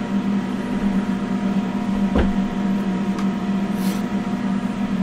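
K40 CO2 laser cutter's fans and pumps running with the laser idle between cuts: a steady hum. A faint click comes about two seconds in and a short hiss just before four seconds.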